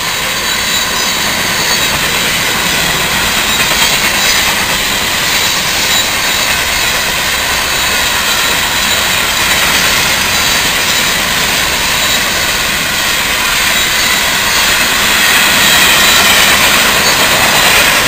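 Freight cars of a Florida East Coast Railway mixed freight train rolling past close by: steel wheels on the rails making a steady, loud rushing noise, a little louder near the end.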